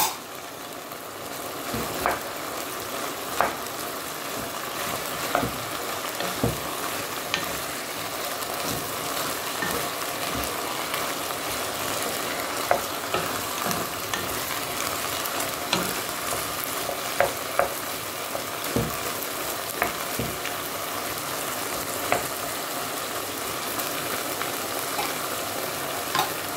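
Chicken pieces, cauliflower and broccoli frying in oil in a nonstick pot with a steady sizzle, stirred with a wooden spoon that knocks against the pot every second or two.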